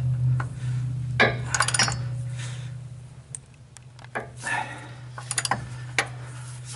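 Ratchet wrench with a 1¾-inch socket clicking and clinking in short bursts as it is swung back and forth to tighten a filter-adapter nut, over a steady low hum.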